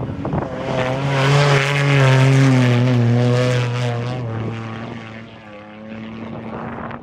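Off-road race vehicle's engine passing by at speed: it grows to its loudest about two seconds in, its pitch drops slightly as it goes by, then it fades away.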